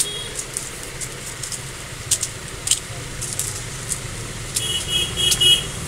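Steady low hum of passing traffic, with a few sharp clicks and a short bright rattle near the end.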